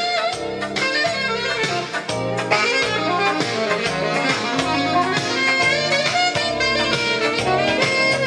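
Music playing from a vinyl record on a turntable, heard through the Sansui R-70 receiver's phono input and the loudspeakers in the room.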